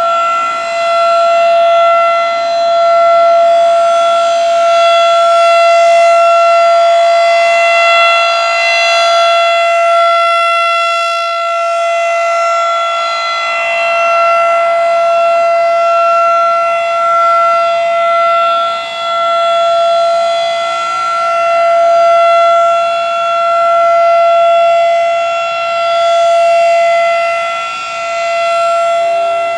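Federal Signal 2001-SRNB rotating outdoor warning siren sounding a steady alert tone at full speed during its monthly test. The pitch holds level while the loudness swells and fades every few seconds as the rotating head sweeps toward and away.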